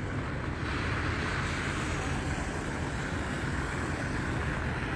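Wind buffeting the microphone in a low rumble, with a steady hiss of car tyres on a slushy, snow-covered road that rises about half a second in.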